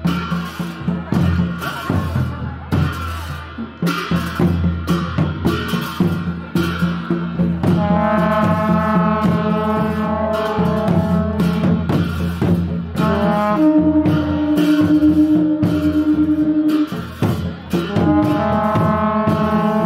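Folk dance music with a steady drum beat. From about eight seconds in, a wind instrument joins, playing long held notes.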